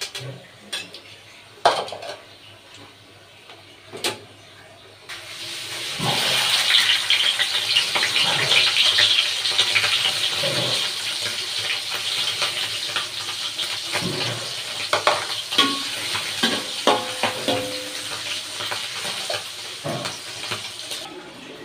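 A metal spatula clinks and scrapes against a wok as battered tempe fritters are lifted out of the oil. About five seconds in, a loud, steady sizzle starts suddenly as small dried anchovies fry in the hot oil, with a few knocks of the spatula in the pan.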